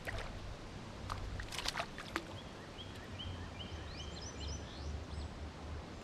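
A few sharp knocks, then a bird calling a quick run of short high chirps over a low steady rumble of wind or water.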